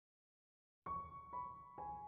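Soft intro music: after a moment of silence, three piano notes, each a step lower than the last, start a falling melody.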